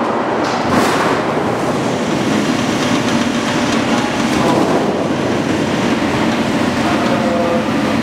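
Automatic sheet-metal cutting line running, steel coils unwinding on decoiler stands and feeding through the line: a loud, steady mechanical noise with one sharp click about a second in.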